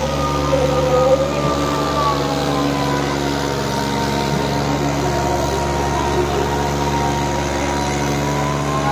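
Tractor diesel engine running steadily at an even speed, not revving, with a higher tone near the top that slowly dips and rises in pitch.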